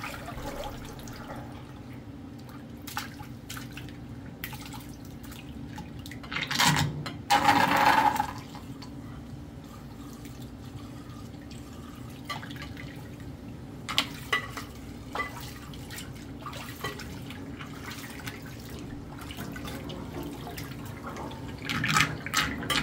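Water swirling and draining out of a stainless steel sink in a steady low rush. Louder splashing and clatter come about seven seconds in, and a few sharp knocks against the metal come later.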